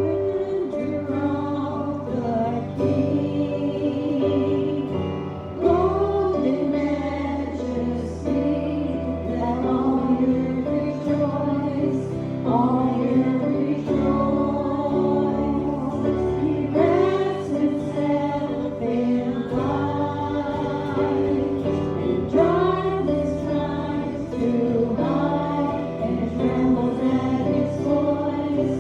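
A group of voices singing a gospel hymn together over sustained instrumental accompaniment.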